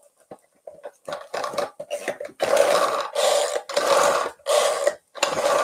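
Zyliss pull-cord food chopper being worked: a few faint clicks, then about five quick pulls of the handle a little over half a second apart, each a short burst of the spinning blades chopping onion inside the bowl.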